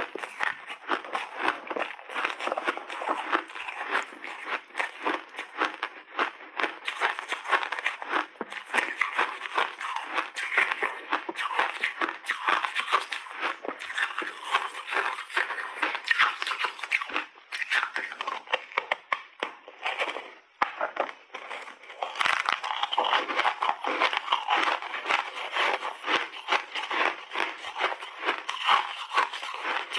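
Close-miked crunching and crackling of refrozen snowballs being bitten and chewed, a continuous stream of small crunches with a short lull about twenty seconds in.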